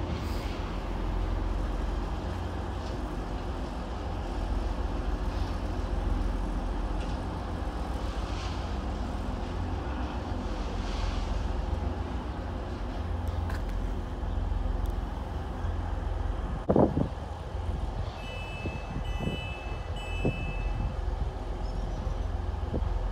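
Class 185 diesel multiple unit's underfloor diesel engines running steadily with a low hum as the two coupled units move slowly past. A sharp knock comes about 17 seconds in, and a short run of high beeps follows over the next few seconds.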